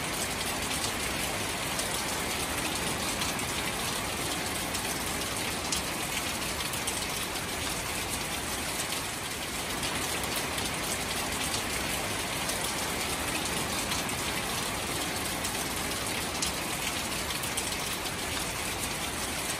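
Steady rain falling on shallow standing water among grass and reeds: an even, unbroken hiss.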